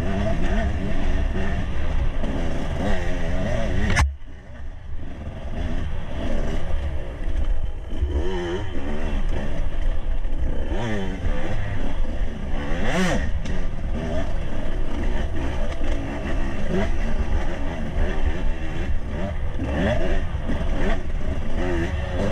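Enduro motorcycle engine revving up and down over and over as it is ridden over a rough forest trail, with the clatter of the bike over the ground. A sharp click about four seconds in is followed by a brief drop in the engine sound, and there is another sharp knock about thirteen seconds in.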